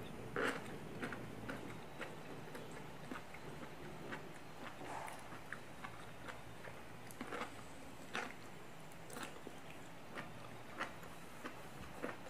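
Close-up eating sounds: biting into a mushroom in spicy sauce and chewing noodles, with irregular soft mouth smacks and clicks, the loudest a bite about half a second in.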